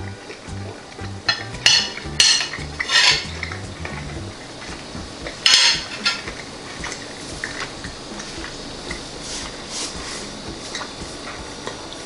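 Metal fork clinking and scraping on a ceramic plate, several short sharp clicks in the first three seconds and the loudest about five and a half seconds in.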